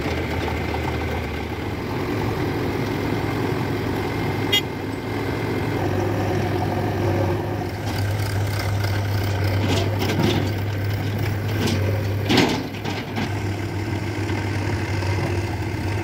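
Farm tractor's diesel engine running steadily at low revs, with a sharp click about four and a half seconds in and a louder knock a little after twelve seconds.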